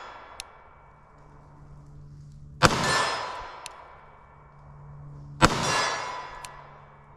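Two pistol shots, about three seconds apart, from a ported 9mm CZ Shadow 2 Compact fired slowly from a rest. Each shot is a sharp crack with a ringing tail lasting about a second, and a faint click follows about a second after each.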